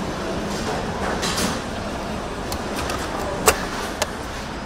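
Car assembly plant floor: steady factory noise, with a sharp click about three and a half seconds in and a smaller one half a second later.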